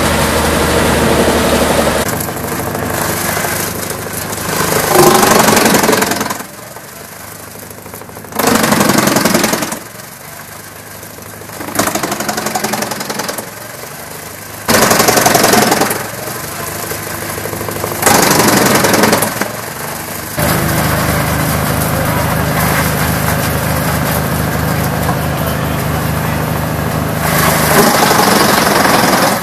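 Tractor-driven wood chipper running, with several loud surges of a second or two as logs are bitten into and chipped. Between the surges the machine runs with less load.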